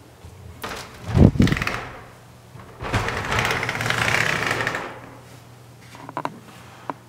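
Two-panel folding bathroom door being opened: a bump about a second in, then a longer rattling scrape as the panels fold and run along their track, followed by a few light clicks.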